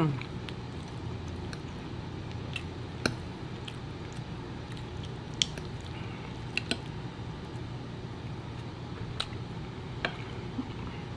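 Chewing and wet mouth sounds of someone eating, with a few sharp clicks of a metal fork against a plate, over a steady low hum.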